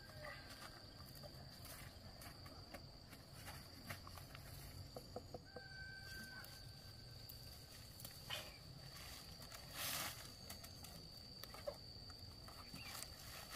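Quiet field ambience with scattered rustling of watermelon vines and plastic mulch film as melons are picked and set in a wicker basket; the loudest rustle comes about ten seconds in. A steady high insect drone runs underneath, and a distant rooster crows briefly about six seconds in.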